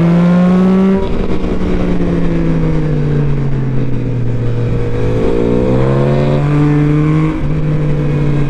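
Sport motorcycle engine under way, its note falling about a second in as the throttle eases, then climbing again in steps in the second half, with wind rush underneath.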